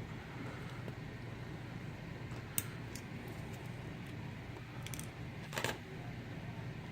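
A few small, sharp metallic clicks and taps from handling the padlock's parts and key, the loudest a little past five and a half seconds in, over a faint steady hum.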